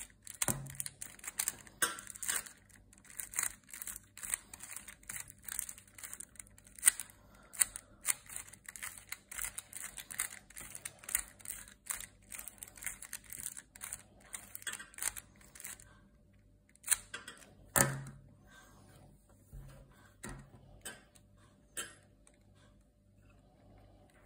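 Hollow plastic balls of a ball cube puzzle clicking and rattling against each other as the puzzle is twisted and rearranged by hand. The clicks come thick and fast at first, then thin out to a few scattered clicks and die away near the end.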